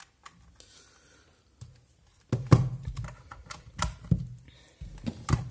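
A USB cable is handled and plugged into a wireless mini keyboard and a power bank's USB port on a tabletop. After a couple of quiet seconds there is a run of short, sharp clicks and knocks, the loudest about two and a half seconds in.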